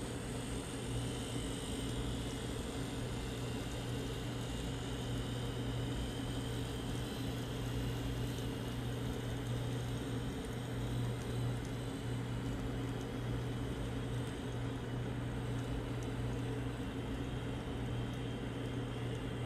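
Z scale model passenger train running along the track: a steady low hum with a few faint light ticks.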